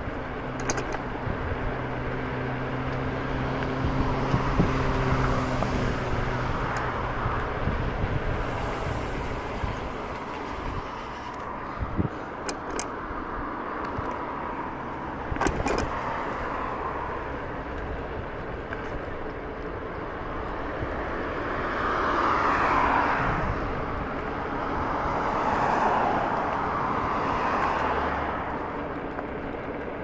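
Egret X electric scooter riding over gravel: a steady rush of tyre and riding noise, broken by short rattles and knocks, with a low steady hum in the first few seconds.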